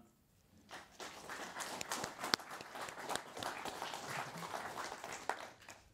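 Audience applauding: many hands clapping together, starting about a second in and dying away near the end.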